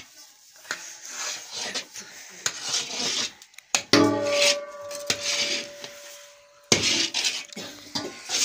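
A long metal spatula scraping and stirring thick, nearly finished sohan halwa in a large metal karahi, a rough rasp with each stroke. About four seconds in, the spatula strikes the pan, which rings with a steady tone for nearly three seconds.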